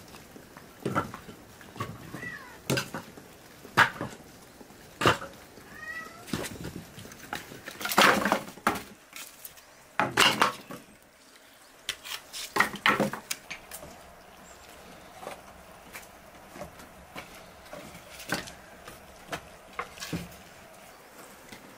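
Pieces of firewood, dry sticks and split logs, knocking and clattering as they are picked up, dropped and stacked to lay a fire in a hearth. There are several separate knocks, the loudest about eight and ten seconds in. A cat meows briefly a few times in between.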